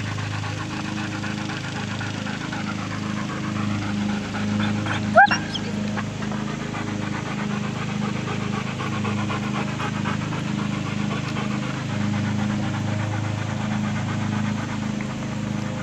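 A dog panting, with one short rising whine or yelp about five seconds in, over a steady low hum.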